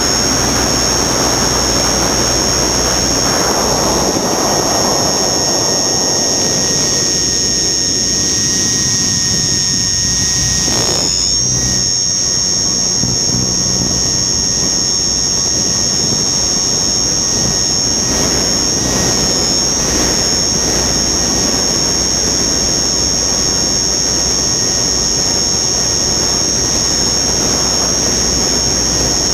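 Onboard sound of a radio-controlled aircraft in flight: a steady, high-pitched motor whine over rushing wind noise that swells and fades. There is a brief hitch in the whine about eleven seconds in.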